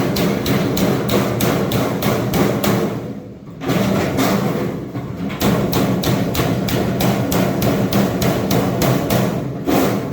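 Hammer tapping a drive cleat down over the edges of sheet-metal duct and a flexible duct connector, rapid even blows at about four a second, with a short pause a little over three seconds in.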